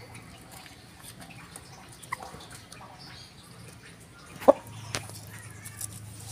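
Chickens in a yard making a few short, faint clucks, with one sharp, brief sound about four and a half seconds in, over a low steady hum.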